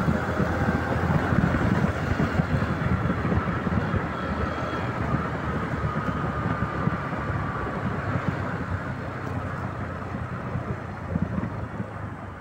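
Bajaj Platino 110 motorcycle riding along, its single-cylinder four-stroke engine running under wind noise on the microphone. The sound eases off gradually over the second half.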